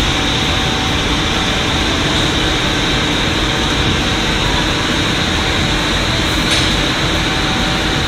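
Marble slab processing machinery running: a loud, steady machine noise with a strong hiss, as the slab moves along the roller conveyor into the machine.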